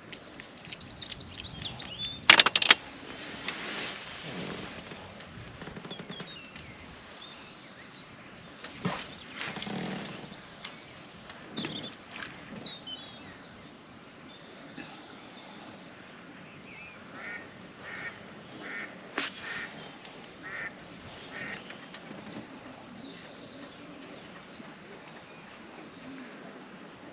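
Ducks quacking in short repeated calls, with small birds chirping. A couple of sharp clatters about two seconds in are the loudest sounds.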